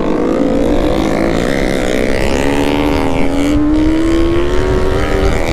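Benelli TNT 600i inline-four motorcycle engine running under way. Its pitch climbs slowly and steadily as the bike gains speed, then eases off slightly near the end.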